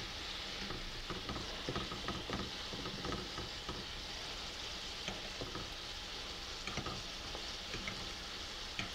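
Shiitake mushrooms sizzling as they simmer in a skillet of soy sauce and water, with faint clicks and scrapes as two forks turn them over in the nonstick pan.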